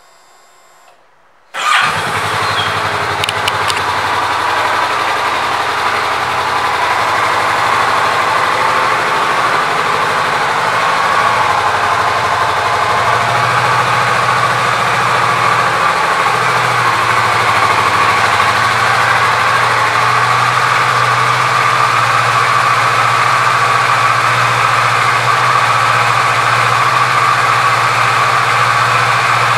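Kawasaki Vulcan S's 649 cc parallel-twin engine starting about a second and a half in, then idling steadily.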